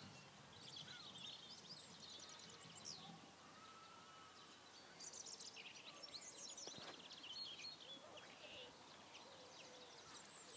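Faint birdsong: several small birds singing quick chirping trills and whistles over a quiet outdoor background hiss, with one short click about two-thirds of the way through.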